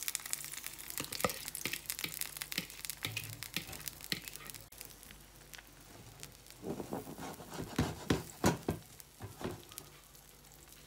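Beaten egg and spinach frying in a pan, sizzling with scattered sharp crackles; the sizzle dies down partway through. Later comes a run of louder short knocks and scrapes.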